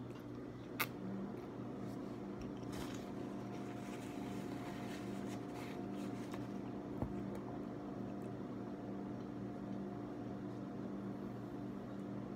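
A steady machine hum with several fixed pitches, like a running appliance or fan, with a sharp click about a second in, another about seven seconds in, and a few faint ticks in between.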